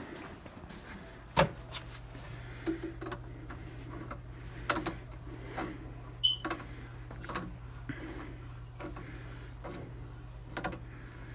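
An old, stiff water shut-off valve being turned fully open with hand tools: a string of irregular metal clicks and knocks, the loudest about a second in. A steady low hum sets in at about the same point and carries on under them.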